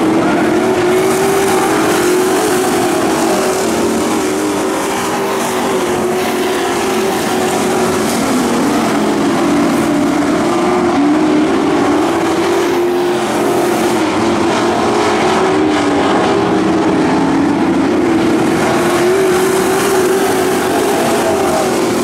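Dirt-track pro trucks' engines running as they lap the oval, the engine pitch rising and falling, dipping lower a couple of times around the middle as they come off the throttle.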